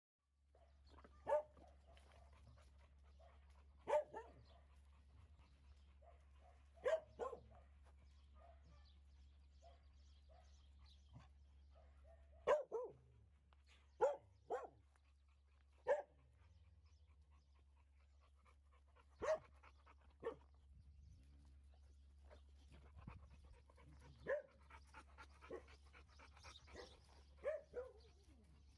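Dogs barking: about a dozen short barks, singly or in quick pairs, a few seconds apart, over a faint steady low hum.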